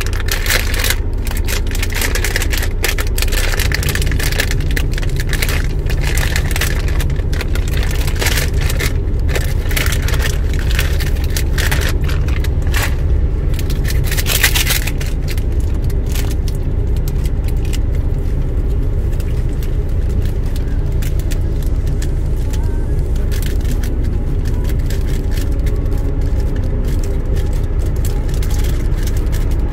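Truck engine running with a steady low rumble, heard from inside the cab. Over it come frequent small scrapes and clicks, thick through the first fifteen seconds with a sharper clatter near the middle, then sparse.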